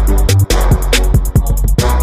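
Background music with a steady drum beat, fast ticking cymbal strokes and heavy bass.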